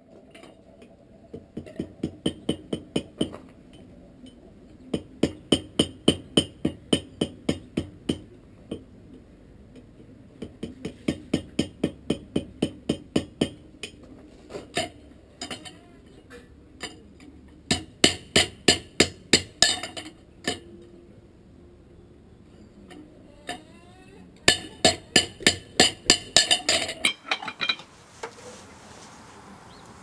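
Blacksmith's hammer striking the hot steel ring of a belt buckle on the anvil at welding heat, forge-welding its joint. The blows come in quick runs of about four a second, with short pauses between, and the later runs ring brighter.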